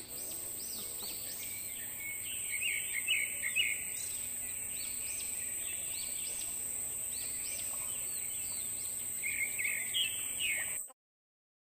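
Outdoor night ambience: a steady high-pitched insect drone, with many short chirping calls repeating over it. It cuts off suddenly about a second before the end.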